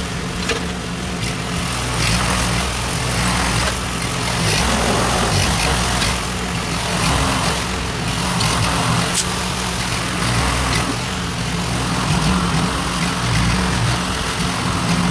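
An engine running steadily, with a noisy layer over it that swells and fades every second or two.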